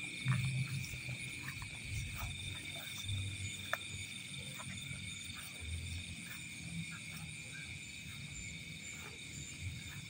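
Steady night chorus of insects and frogs from the rice paddy, a continuous high trilling. Footsteps and brushing through grass and stubble sound at intervals, loudest just after the start.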